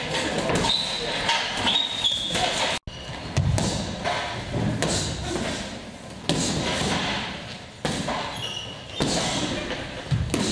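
Boxing gloves punching, first on a heavy bag and then on focus mitts: an irregular run of thuds and slaps, with a brief break about three seconds in.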